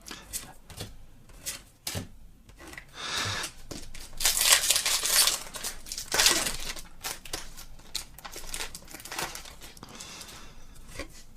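Foil wrapper of a Pokémon trading-card booster pack crinkling and tearing as it is opened. Light ticks and handling sounds come first, and the crinkling is loudest in the middle of the stretch.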